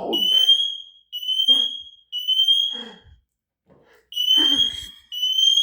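Smoke alarm sounding in its three-beep pattern: three long, high, piercing beeps about a second apart, a short pause, then the next group starting.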